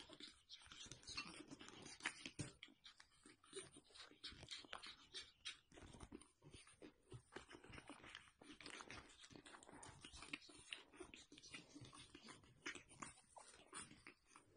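Faint sounds of pug puppies wrestling and play-biting on a blanket: soft rustling with many small clicks and snuffles.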